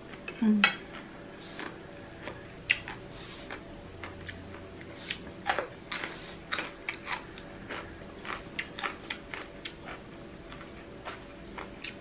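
Irregular clinks and clatters of utensils against dishes and bowls, with one louder knock about half a second in.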